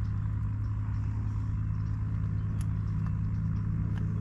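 Boat motor running at a steady speed, an even low hum that does not change.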